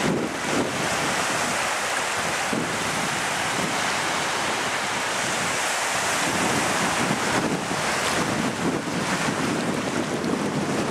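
Low sea surf washing into shallow water on a sandy beach, a steady hiss of breaking waves. Wind buffets the microphone throughout, rumbling harder in the second half.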